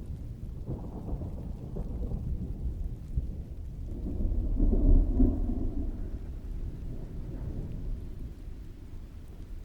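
Rain falling steadily while thunder rumbles low, swelling to a peak about five seconds in and then fading away.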